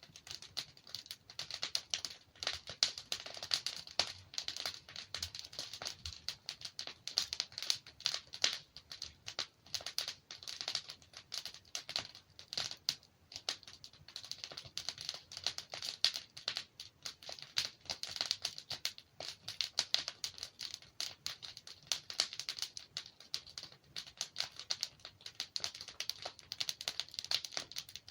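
Wood fire burning in a fireplace, logs crackling with a dense, irregular run of small pops and snaps.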